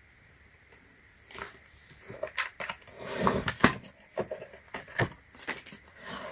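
Plastic case of a battery charger being worked open with a hand tool: irregular sharp clicks and knocks with a short scraping rasp in the middle, starting about a second in.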